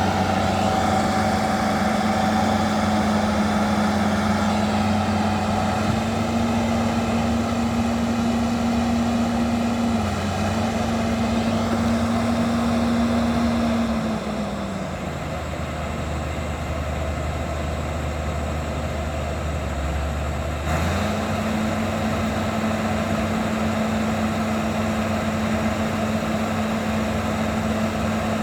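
Bulldozer's diesel engine running steadily at working revs. About halfway through the revs drop and the sound gets a little quieter, then they pick back up about seven seconds later.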